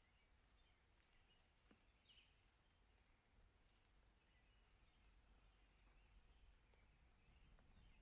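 Near silence: faint outdoor ambience with a steady low rumble and a few faint, high bird chirps scattered through.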